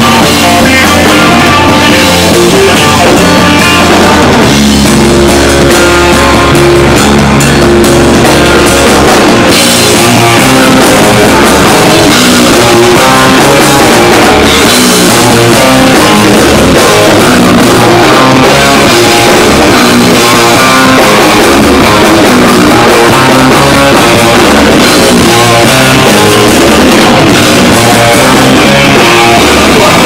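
Heavy metal band playing live and very loud, heard from right by the stage: distorted electric guitar, bass guitar and drum kit. Long held low notes give way about ten seconds in to busier playing with more cymbal.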